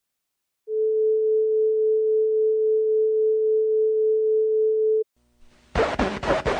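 Pure steady tone of a 435 Hz tuning fork (diapason), played back from an 1859 phonautogram, in a clean restored form. It lasts about four and a half seconds and stops abruptly. Near the end, loud crackly, scratchy bursts and clicks begin: the 1853–54 phonautogram of guitar notes.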